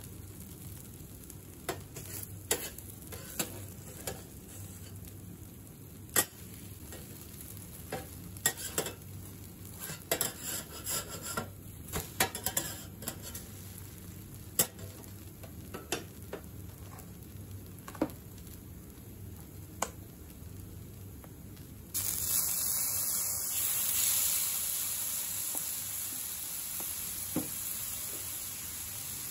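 Okonomiyaki frying on a hot steel teppan griddle, with metal spatulas clicking and scraping against the plate now and then. About two-thirds of the way through, a sudden loud sizzle starts as sauce hits the hot griddle and keeps hissing.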